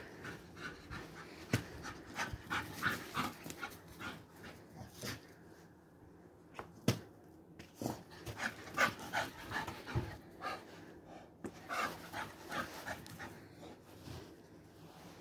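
English bull terrier × Patterdale terrier cross panting in short rapid runs, with a few sharp knocks in between.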